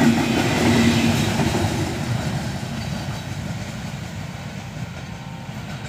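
Bangladesh Railway intercity express passenger coaches running along the track, with a rumble of wheels on rail that fades steadily as the train draws away.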